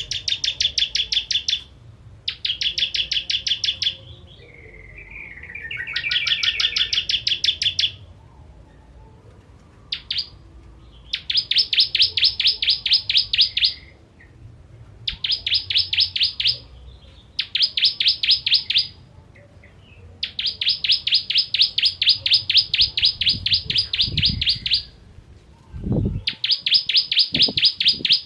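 Ciblek kristal (bar-winged prinia) singing: fast rattling trills of rapidly repeated high notes, about nine a second, in bursts of one to four seconds with short pauses, plus a lower warbling phrase about five seconds in.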